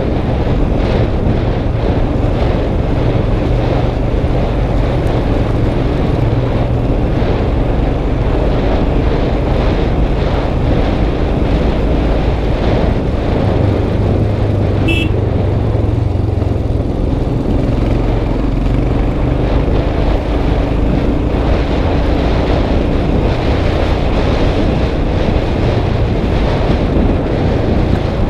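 Motorcycle engine running steadily at low speed on a rough dirt track, picked up by a helmet-mounted camera under a steady noisy rush. There is one short high click about halfway through.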